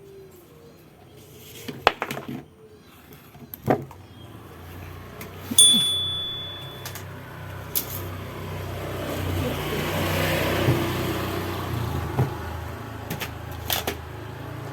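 A small electric motor humming steadily, louder in the middle, with scattered sharp clicks and knocks of workshop handling and a short high beep about six seconds in.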